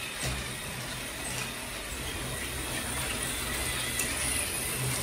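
LEGO train, the Emerald Night steam locomotive and its coaches, running along plastic track: a steady low motor-and-wheel rumble with a few light clicks.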